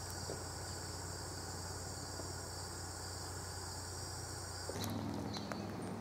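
Crickets trilling steadily in an even, high-pitched chorus. About five seconds in the sound switches abruptly to a lower steady hum.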